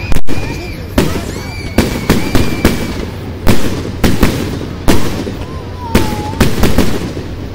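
Aerial fireworks shells bursting overhead in a rapid series of sharp bangs, about two a second, each ringing out briefly.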